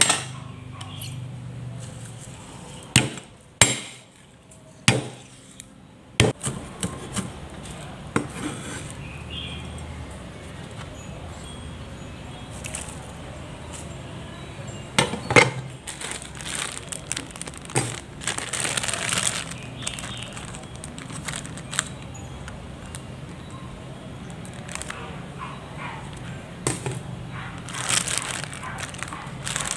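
Garlic cloves being smashed with a knife on a wooden cutting board: sharp knocks, four in the first six seconds and a couple more later, with light clinks against a metal bowl. A plastic bag crinkles near the end, over a low steady hum.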